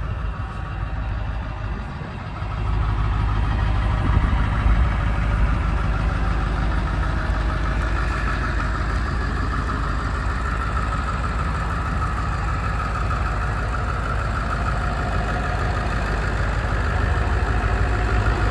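Ford 7.3-litre turbo-diesel V8 idling steadily with its diesel clatter, getting louder about two seconds in and then holding steady.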